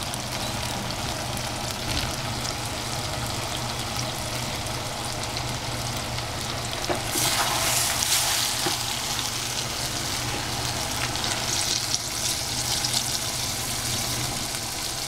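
Eggplant and squash cooking in tom yum sauce and coconut milk over a high flame, sizzling steadily, with stirring that grows louder about seven seconds in.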